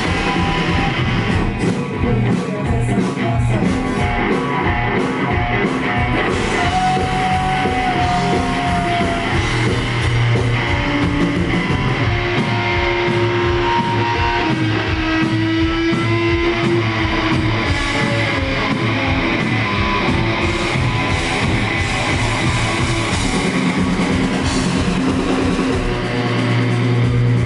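Live rock band playing: electric guitar through amplifiers with long held notes over steady, driving drums, a mostly instrumental stretch.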